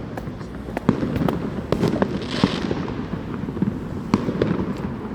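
Fireworks going off in the distance: many irregular sharp cracks and bangs, with a hissing burst about two and a half seconds in.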